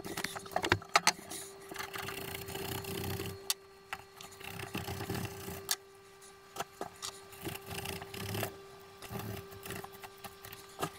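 Knife slicing through thick manila rope on a wooden board, played back sped up eight times: fast, irregular scraping and rasping of rope fibres with many sharp clicks and knocks, over a faint steady tone.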